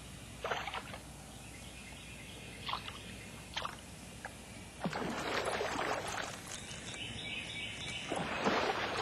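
Water splashing and sloshing in short bursts, the two biggest splashes about five and eight seconds in.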